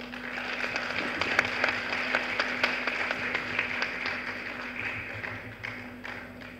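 Audience applauding, starting all at once and dying away over the last couple of seconds.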